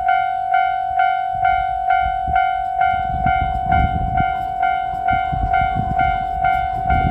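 Japanese level-crossing alarm bell ringing steadily, about two strikes a second, as the Nanpū limited express diesel train passes over the crossing from about a second and a half in, its wheels rumbling and knocking over the rail joints.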